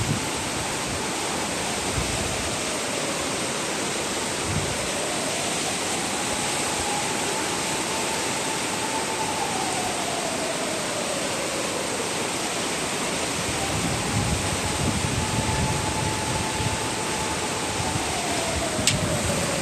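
Strong gusty wind rushing steadily over the microphone, with low buffeting thumps, in the wake of a typhoon. A faint tone slowly rises and falls through it, like a wail, about every eight seconds.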